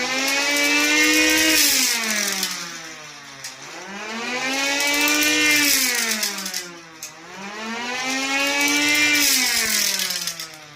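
Homemade 3D-printed two-tone air raid siren, hand-cranked through step-up gearing, wailing: the pitch rises as the impeller spins up and falls as it slows, three times over, fading near the end. A few faint clicks sound over it.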